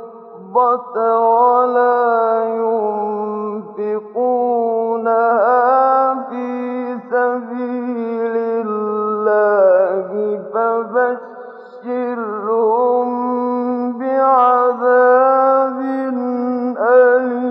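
A male Quran reciter chanting in melodic tajweed style. He holds long notes with wavering, ornamented turns in pitch, with short breaks for breath between phrases.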